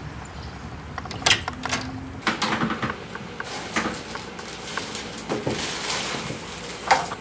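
Front door being opened, with sharp latch clicks and knocks, and the crinkly rustle of a plastic mailer package being carried in through it.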